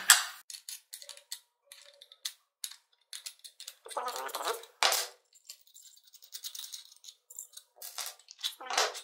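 Scattered clicks, taps and rattles of a wrench and steel bolts working against 3D-printed plastic parts as a bolted carriage is taken apart by hand.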